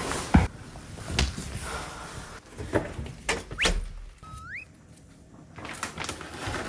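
Scattered light knocks and clicks, and about four seconds in a short, single rising chirp from a British Shorthair kitten, a bird-like cat chirp.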